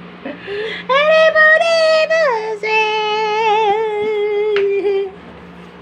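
Puppy howling in its crate: one long high howl that drops to a lower held note about two seconds in, wavers slightly, and breaks off near the end.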